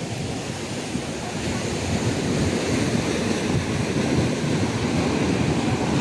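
Steady rushing of the Basaseachi waterfall in rainy-season flow, mixed with wind buffeting the microphone, growing slightly louder toward the end.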